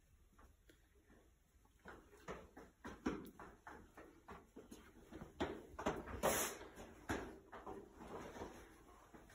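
Faint, irregular footsteps and thumps of children running and hopping on a hard tiled hallway floor, with one louder scuff about six seconds in.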